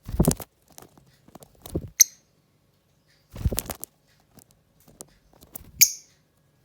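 Pet lovebird giving two short, sharp chirps, one about two seconds in and one near the end, among bouts of rustling and scuffling noise.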